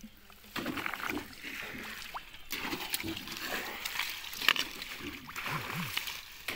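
Shallow, muddy pond water sloshing and splashing as a person wades and gropes through it by hand, with small splashes and drips; it starts about half a second in.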